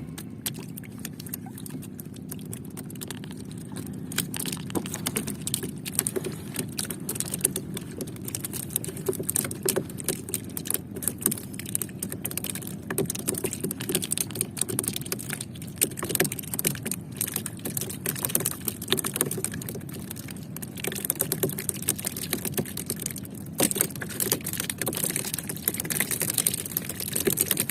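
Fishing boat's engine running steadily, with rapid clicking and a hiss that grows louder in the second half.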